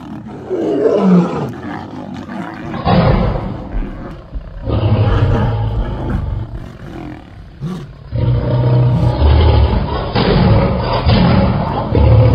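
Lions fighting: a male lion and lionesses giving deep roars and snarls in repeated bursts of a second or two.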